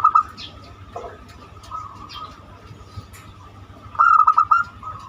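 Zebra dove (perkutut) of the banyumili type cooing: a short run of quick coo notes at the start and a longer run about four seconds in. The recording is meant as a lure call to get other doves singing.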